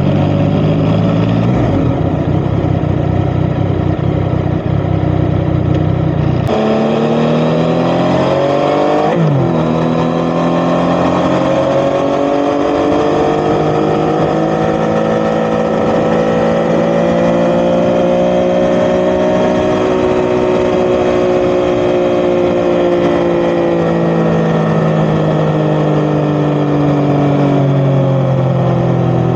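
Yamaha XSR900's three-cylinder engine running through an Akrapovic titanium exhaust while riding. A heavy low rumble covers it for the first six seconds, then the engine note comes through clearly. Its pitch dips sharply and recovers about nine seconds in, like a gear change, then climbs slowly and eases off again near the end.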